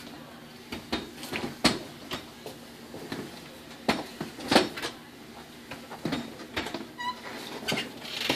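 Tracked stair chair with a seated patient being taken down a flight of stairs: irregular knocks and clunks as its treads come over the stair edges, mixed with the bearers' footsteps on the steps. A short squeak comes about seven seconds in.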